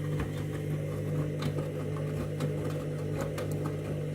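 Candy washing machine running its main wash: a steady motor hum from the turning drum, with light scattered clicks and knocks from the load.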